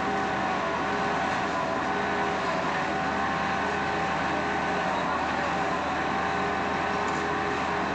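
Asphalt paver's diesel engine running steadily at work, with a steady whine over the engine noise.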